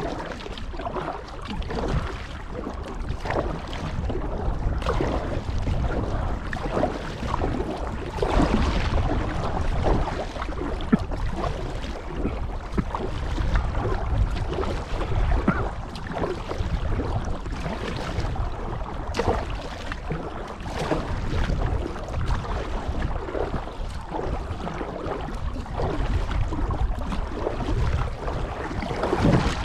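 Kayak paddle blades dipping and splashing in canal water in a steady run of strokes, with wind buffeting the microphone.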